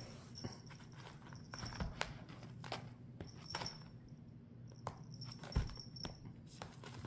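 Light, irregular taps and scuffs of a cat batting and pouncing at a wand toy and rope toy on a leather recliner sofa.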